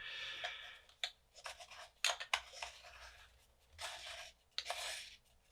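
Parts of a hot air rework station's wand being fitted back together by hand: scraping and rubbing with a few sharp clicks, as a part is turned to screw it back on and does not catch.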